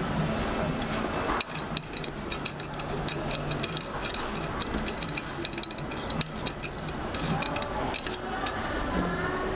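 Coleman Feather single-burner stove being handled: many quick metal clicks and rattles with short hissy scrapes, fairly steady from about a second and a half in until near the end.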